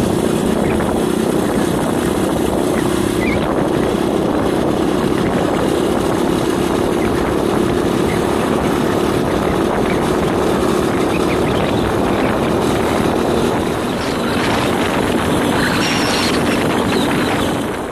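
Steady engine drone and road and wind rush of a vehicle travelling at highway speed, with a constant low hum that eases slightly past halfway. Wind buffets the microphone.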